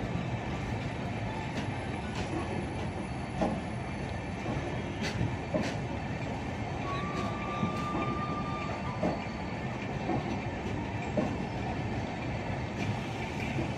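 LHB passenger coaches rolling past with a steady rumble of wheels on rail and scattered clicks. A thin, high, steady wheel squeal comes in about seven seconds in and lasts two to three seconds.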